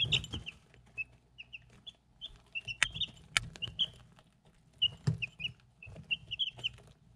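Three-week-old chicks peeping over and over in short chirps while their beaks peck at a ceramic bowl, with several sharp taps among the calls.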